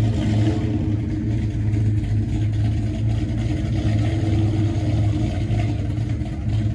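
Vintage pickup truck's engine running steadily at low revs as the truck creeps forward, a constant low hum.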